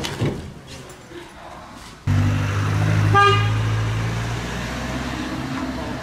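A vehicle engine running close by, cutting in abruptly about two seconds in and slowly fading, with a short car horn toot about a second later.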